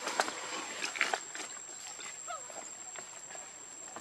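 Macaques making a few short squeaks and scuffling sounds, with faint chirps about two seconds in, over a steady high-pitched whine.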